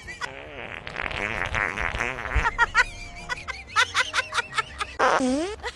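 Fart sounds: a long raspy fart for about the first two seconds, then a run of short, squeaky, high-pitched toots, and near the end a squeal that dips and rises in pitch.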